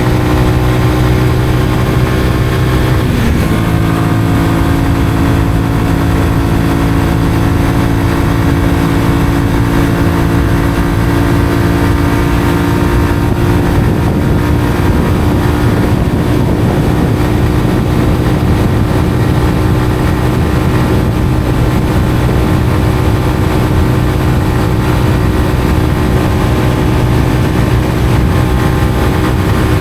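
Honda CBR125R's single-cylinder 125 cc four-stroke engine running through a Mivv aftermarket exhaust while being ridden at a steady pace, with one brief dip in pitch about three seconds in.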